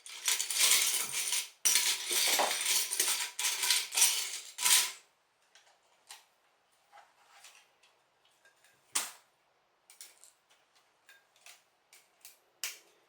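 Loose plastic LEGO pieces clattering densely for about five seconds as hands sort through them, then scattered single clicks and taps as pieces are pressed onto the build.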